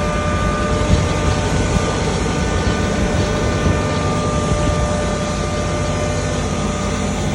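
Motor-driven turmeric (haldi) grinder running steadily at full speed: a steady, high whine over a rumble.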